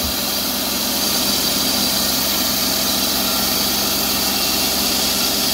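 TimberKing 2220 band sawmill running steadily, its engine under load as a resharpened carbide-tipped band blade cuts through a log.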